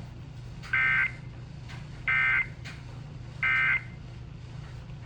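Emergency Alert System end-of-message data tones: three short bursts of two-tone digital screech, about a second and a half apart, marking the end of the severe thunderstorm warning. A steady low hum runs underneath.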